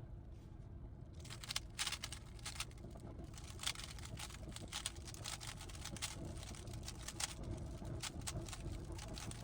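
A GAN 15 speedcube's layers being turned, an irregular run of quick plastic clicks starting about a second in, over a steady low rumble.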